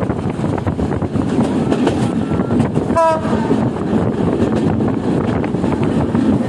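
A train running along the track, heard from inside a carriage as a steady rumble. About halfway through, a short horn blast sounds.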